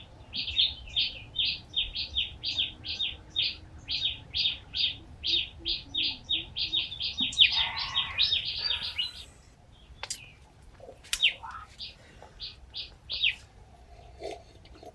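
A small bird chirping over and over, about three short chirps a second for the first nine seconds, then more sparsely. A brief rustle about eight seconds in and a few sharp clicks near the end.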